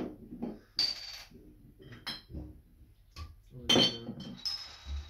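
Empty glass beer bottles clinking against each other and knocking on a wooden floor as they are picked up and set down: about five sharp clinks, each with a brief high ring.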